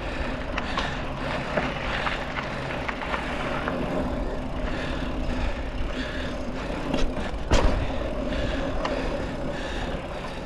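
Mountain bike on tubeless tyres rolling over a dirt trail, heard from a camera on the bike or rider: a steady rumble of tyres and movement with scattered chain and frame rattles and clicks, and one louder knock about seven and a half seconds in.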